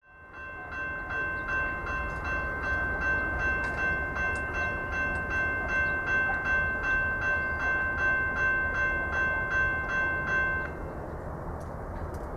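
Railroad grade-crossing warning bell ringing at about three strikes a second, the sign that the crossing has been activated for an approaching train. It stops abruptly near the end, leaving a low outdoor rumble.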